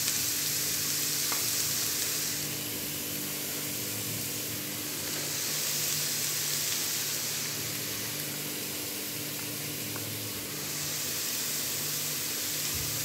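Grated carrot frying in ghee in a non-stick pan, sizzling steadily as it is stirred. The sizzle swells and eases every few seconds. A steady low hum runs underneath.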